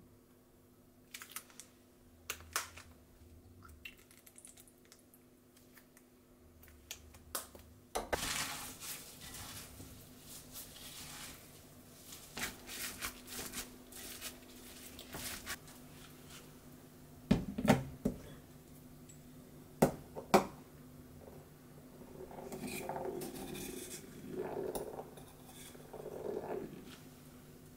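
A gloved hand kneading gyoza filling of ground meat, cabbage and shiso in a glass bowl: a wet squishing and rubbing that starts about eight seconds in, followed by a few sharp clinks against glass. A steady low hum runs underneath.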